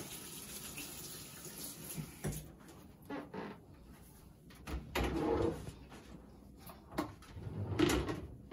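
Light knocks, clicks and clatter of kitchenware and a plastic food container being handled on a counter, the louder bits coming about five seconds in and near the end.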